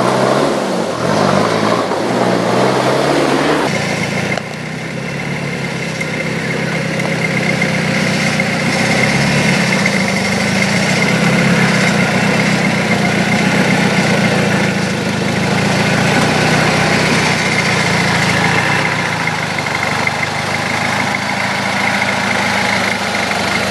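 Toyota Hilux's 3.0 turbo diesel engine running steadily at low revs as the truck crawls off-road, with an abrupt change in the sound about four seconds in.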